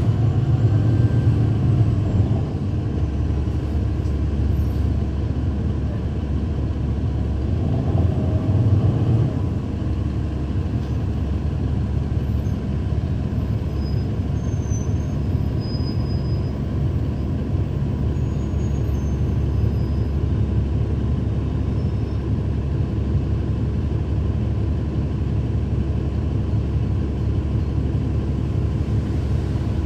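Cummins ISL9 diesel engine of a 2012 NABI 40-foot transit bus, heard from on board as it runs. A steady drone, with louder swells near the start and about eight seconds in.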